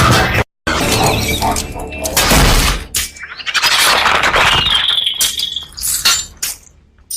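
Sound effect of Scorponok, the robotic scorpion from the Transformers films: dense metallic clattering and grinding, with a high screech held for about a second midway, trailing off into a few scattered clicks. A brief break just after the start marks one effect ending and the next beginning.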